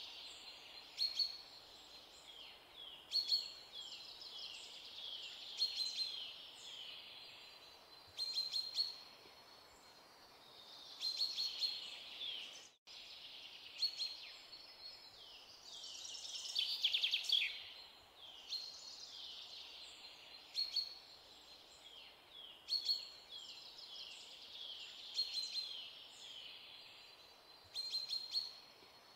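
Small birds chirping: many quick, falling chirps keep on throughout, with sharper, louder calls every two to three seconds. The sound breaks off for an instant about halfway through.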